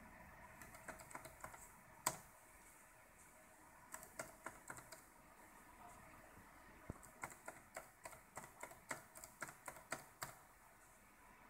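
Laptop keyboard keys tapped in short runs of clicks with pauses between, as number keys are typed. One harder tap comes about two seconds in, and the longest run is in the second half.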